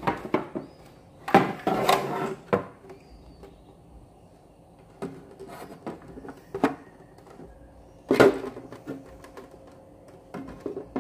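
Irregular knocks and clatters of handling at a fish tank, with a longer burst of clattering about a second and a half in and another sharp one about eight seconds in.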